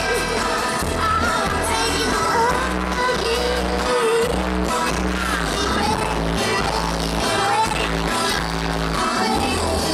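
A live band playing a pop song, with a woman singing lead into a microphone over steady bass and drums.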